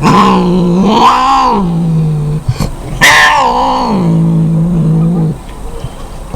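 A cat yowling: two long, drawn-out calls, each rising in pitch and then held at a lower, steady pitch before breaking off.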